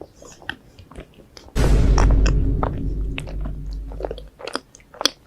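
Close-miked mukbang eating sounds: crisp biting and chewing clicks. About a second and a half in, a sudden loud, deep rumble with a low hum cuts in and lasts nearly three seconds.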